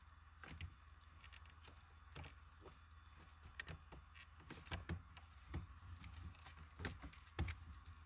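Faint, irregular clicks and taps of a plastic center-console trim panel and its wiring being handled as a connector is fitted into a clip on the panel, with a few louder knocks a little after two seconds, near five seconds and around seven seconds.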